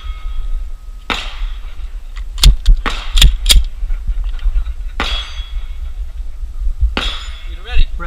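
9mm pistol shots from a Glock 34 fired at steel targets, with ringing clangs from the struck steel. There is one shot about a second in, a quick run of about five in the middle, and more sharp reports later on.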